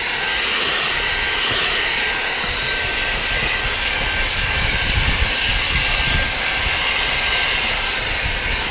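Dyson handheld vacuum cleaner running steadily: a rushing air sound with a high-pitched motor whine on top.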